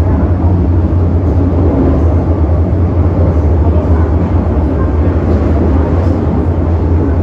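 Metro-Cammell M-Train electric multiple unit running through a tunnel between stations, heard inside the passenger car: a loud, steady low rumble of wheels on rail and running gear.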